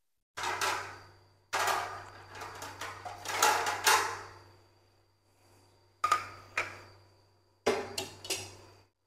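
A kitchen knife chopping on a thick wooden chopping block, slicing cooked pig offal, in several short runs of sharp strikes with pauses between them.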